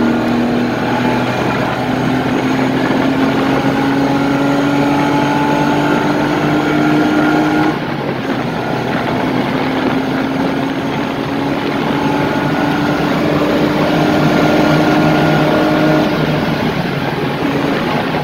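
BMW E30's swapped-in M50 straight-six engine pulling hard under full acceleration, heard from inside the cabin, its pitch climbing steadily with road noise underneath. The pitch drops sharply at an upshift about eight seconds in, then climbs again, and changes once more near the end.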